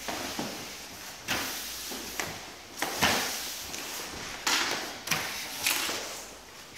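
An irregular series of about eight sharp knocks and bangs echoing off the walls of a garage, the loudest about three seconds in.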